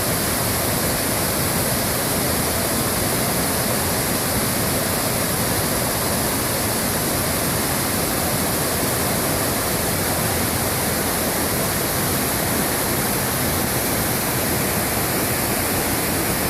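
Headwater mountain stream rushing steadily: an even, unbroken hiss of flowing water.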